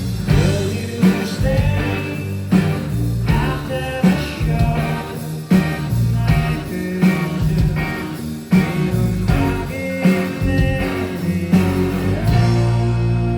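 Indie rock band playing live, with singing over guitar, bass and drums and a strong hit about every second and a half. About 12 seconds in, the drums stop and a long chord is held.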